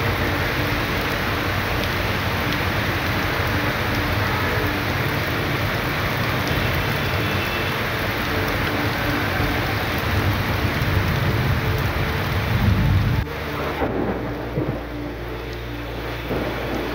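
Heavy rain pouring steadily, with a low rumble beneath it. About thirteen seconds in, the sound cuts abruptly to a quieter, thinner rain noise.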